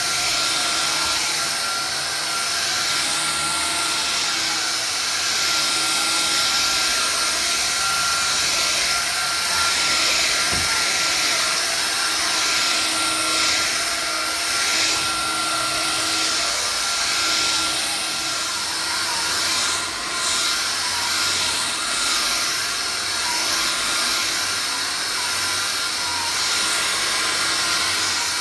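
Vax Air Cordless Lift cordless upright vacuum cleaner running continuously, a steady high motor whine over the hiss of its airflow.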